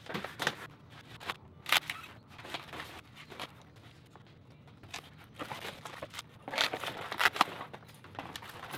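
Packaging and small bike parts being handled during unboxing: scattered clicks, crinkles and rustles, busiest near the start and again about two-thirds of the way through.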